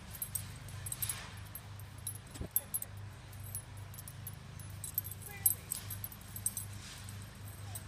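A lawn mower engine runs steadily, with light jingling clicks and a dog's faint, brief whimpers now and then.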